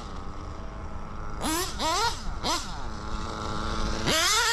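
Modded Novarossi P5-based .21 nitro engine on a Reds 2104 tuned pipe, in a 1/8-scale RC buggy: three quick throttle blips that rise and fall, a drop to a low steady idle, then a sharp climb to sustained high revs about four seconds in.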